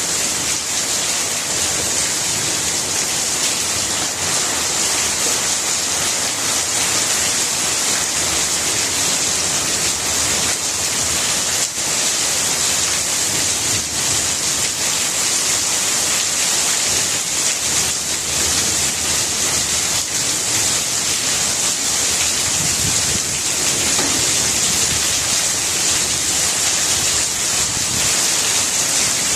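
Steady rain falling on plant leaves, a dense even hiss of drops.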